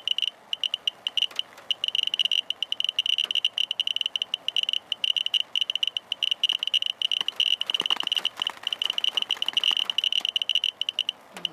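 Radiation meter (Geiger counter) chirping rapidly and irregularly, a short high-pitched beep for each count. The chirps come fast at around 1,300 counts per minute, a little over 40 times background, from a radioactive rain-swipe sample.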